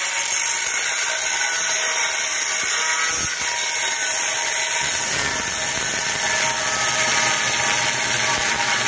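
Angle grinder with a cutting disc running steadily at full speed, a loud even whine and hiss.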